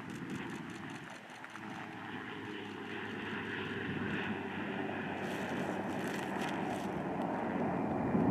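MQ-9 Reaper's turboprop engine running, a steady propeller-aircraft noise that grows gradually louder as the drone draws nearer.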